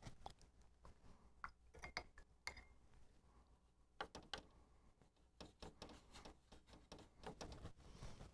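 Watercolour brush dabbing and tapping in the wells of a paint palette while mixing paint: a run of faint, irregular clicks and taps, thickest in the last few seconds.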